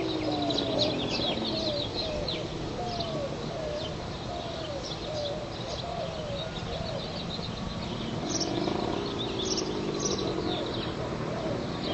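Kawasaki 500 two-stroke triple with expansion-chamber exhausts heard at a distance: its engine note falls and fades as the bike rides away, then rises and grows louder again about eight seconds in as it comes back. Birds chirp throughout.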